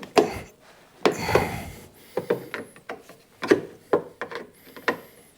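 Steel flathead screwdriver clicking, knocking and scraping in the groove cut into a seized hardened-steel screw as it is worked to twist the screw loose: a string of sharp clicks with a longer scrape about a second in.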